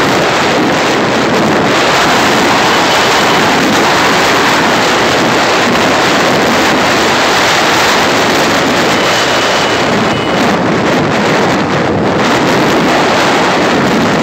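Steady, loud wind rushing over the microphone of a moving vehicle, mixed with road and engine noise.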